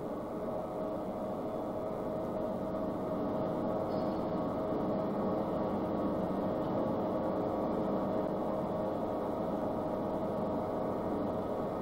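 Turbofan jet engine running steadily on test: a constant rushing drone with a hum running through it, growing a little louder over the first few seconds.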